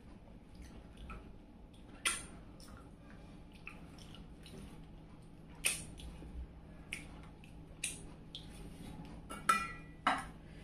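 Close-miked eating sounds: small wet mouth clicks while chewing, with half a dozen sharper clinks against a plate.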